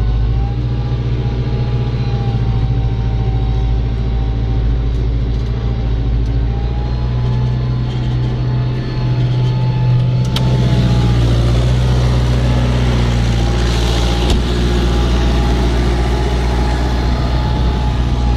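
Farm tractor's diesel engine running steadily under load while pulling a plough. It dips briefly about halfway through, then picks up and runs a little harder.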